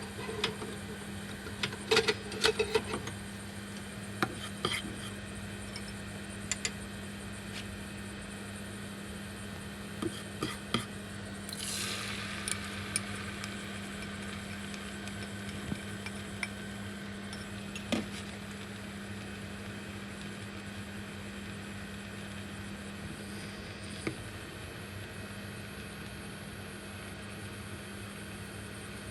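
Metal cooking utensils clattering and clinking against a pan in scattered strokes, busiest in the first ten seconds, with a brief hiss about twelve seconds in. A steady low hum runs underneath.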